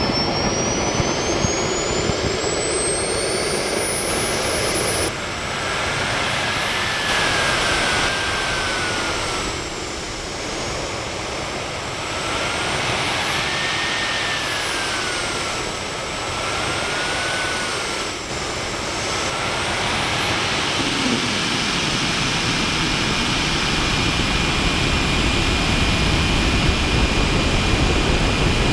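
Radio-controlled model jet's engine, heard from its onboard camera, whining over a steady rush. The whine glides up and down in pitch as the throttle is worked, then climbs steeply about twenty seconds in and holds high and steady at full power for the takeoff and climb-out.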